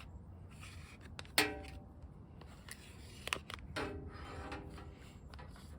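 Small handling clicks and two brief ringing metallic clinks as the metal front plate and the turn-signal light's cable and connector are handled and threaded through a hole in the plate.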